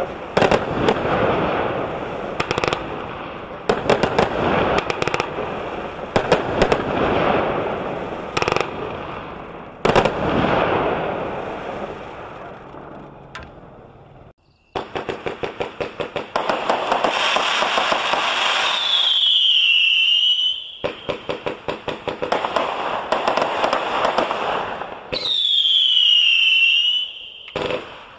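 Consumer firework cakes firing: a rapid string of launch shots and aerial bursts. After a brief gap about halfway, a second cake fires a fast, even run of shots, with two falling whistles from its shells.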